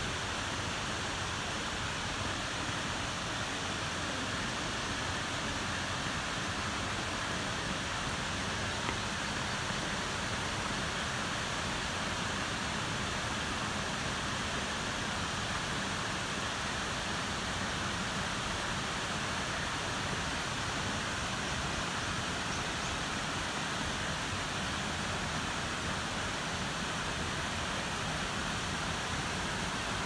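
Steady rush of Shiraito Falls' curtain of cascades and the rocky river below them, an even hiss with no break.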